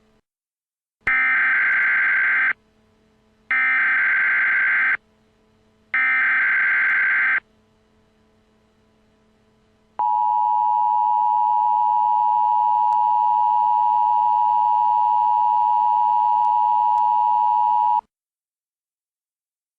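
Emergency Alert System signal: three short bursts of screeching digital data tones (the SAME header that encodes the alert), about a second apart. About two and a half seconds later comes the steady two-tone EAS attention signal, held for about eight seconds, then cut off. Together they announce the start of an emergency alert broadcast.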